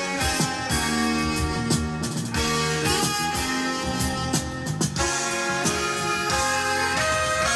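Guitar-led music played back from a cassette that was recorded from a vinyl record on a repaired Kenwood cassette deck.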